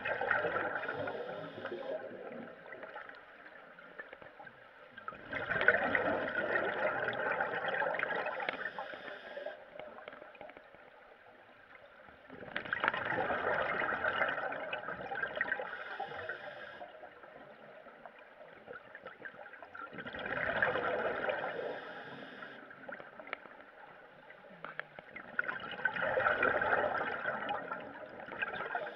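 Scuba regulator exhaust bubbles heard underwater: a diver's exhalations come out as bubbling, gurgling bursts of a few seconds each, about every seven seconds in a steady breathing rhythm, with quieter gurgling between them.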